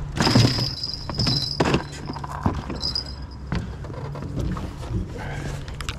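Rod and reel being worked as a small catfish is brought in: scattered clicks and knocks over a steady low hum. A high steady whine runs through the first couple of seconds and returns briefly about three seconds in.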